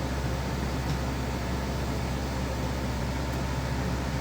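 EcoFlow Wave portable air conditioner running in cooling mode with its compressor on and its fan at full speed: a steady rush of air over a constant low hum.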